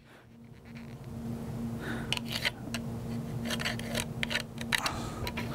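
Marker drawing on a bowling ball's shell along a plastic layout ruler: a series of short, scratchy strokes starting about two seconds in, over a faint steady hum.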